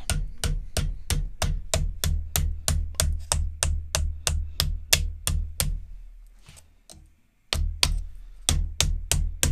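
Plastic-faced mallet hammering a metal rod held against the flange of an aluminium nose rib on a wooden form block, working the flange down. There are about three sharp blows a second, a pause of about a second and a half past the middle, and then the blows resume.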